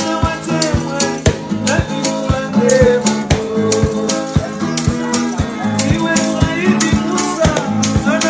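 Live acoustic guitar strumming with hide-headed drums struck with a stick in a steady beat, and a man singing over them.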